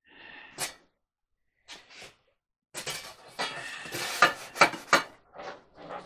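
Small hard objects being handled and clattering, with sharp clinks. A single click comes under a second in, and a busier run of clatter starts about three seconds in, with the loudest clinks between four and five seconds.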